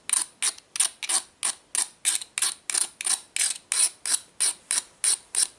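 A metal hand file scraping across the steel blade of a mixer-grinder jar in quick, even strokes, about three to four a second, sharpening the blade's cutting edge.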